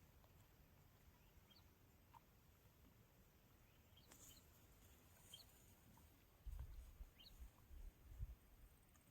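Near silence: faint outdoor background hiss with a few short, faint high chirps, and low rumbles in the second half.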